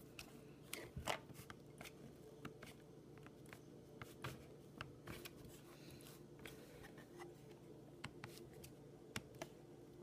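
Faint scattered clicks and taps of fingers pressing and handling a laptop RAM module in a late 2006 MacBook's memory slot, over a faint steady room hum.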